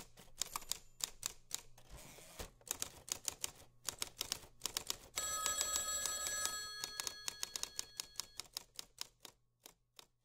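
Irregular clicking of keys being typed on a computer keyboard, thinning out and fading toward the end. About five seconds in, a telephone rings with an electronic trilling ring for about three seconds.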